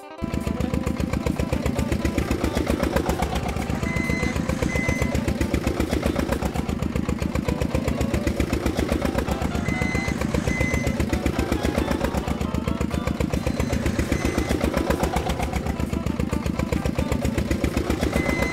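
Engine sound effect for a toy excavator: a steady, fast, even-pulsing machine engine running, cutting in abruptly at the start. Three times a pair of short high beeps sounds over it.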